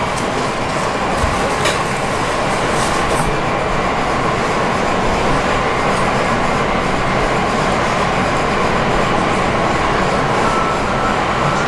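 Steady rushing background noise of a commercial kitchen, with a few light clicks and taps in the first three seconds.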